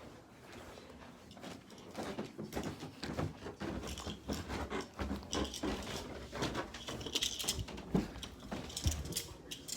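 Footsteps going down stairs, with irregular thumps, clatter and rustling from about two seconds in.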